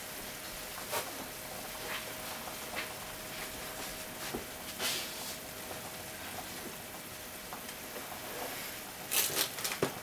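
Ketchup-coated macaroni sizzling in a frying pan: a steady hiss with scattered small pops and crackles, and a louder cluster of crackles near the end.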